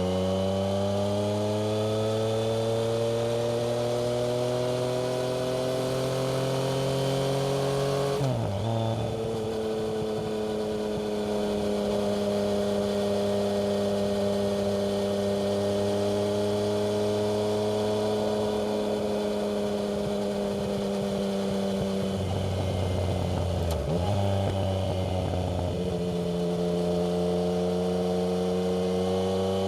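Yamaha MT-09 three-cylinder engine through a Black Widow aftermarket exhaust, under way: its pitch climbs steadily for the first eight seconds, then drops sharply as the rider changes up a gear. It runs at fairly even revs for a long stretch, dips briefly once more about three-quarters of the way in, and climbs again.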